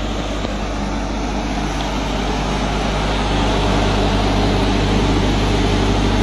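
The spark-ignition engine of a 15 kW biogas generator running steadily on biogas, a constant engine hum that gets somewhat louder about halfway through.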